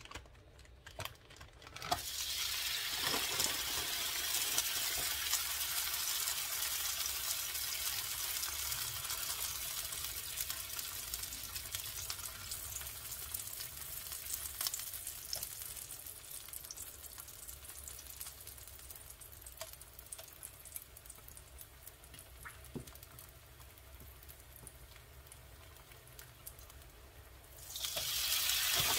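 Oil-dipped tortilla frying on a hot electric griddle with a crackling sizzle. It starts about two seconds in and slowly dies down, then a second tortilla hits the griddle near the end and sizzles louder.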